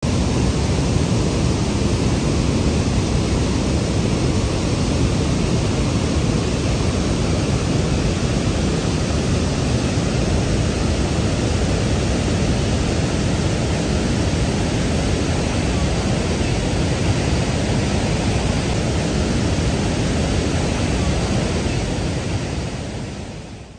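Water discharging through a dam's open gates and churning into the channel below: a steady, loud rush of water that fades out near the end.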